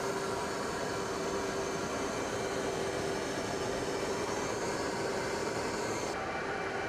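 F-35B fighter jet's engine running: an even rushing noise with a held mid-pitched tone and a thin high whine that rises slightly about five seconds in.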